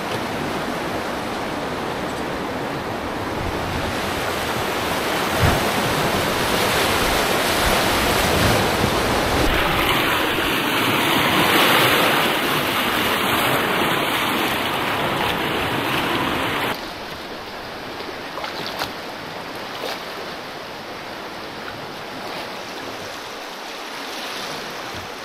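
Whitewater rapid rushing around a rowed raft: a steady, loud rush of churning water that grows louder through the middle, then drops suddenly to a quieter flow as the river calms.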